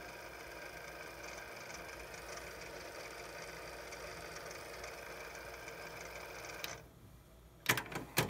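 Kenwood dual cassette deck running with a faint steady hum that cuts out about seven seconds in. A few sharp mechanical clicks from its transport buttons follow near the end.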